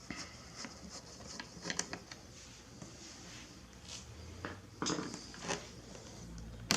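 Phillips screwdriver working the screws out of a Miata's front turn-signal lens: faint, scattered clicks and scrapes of metal on plastic, a little stronger around two seconds in and again near five seconds.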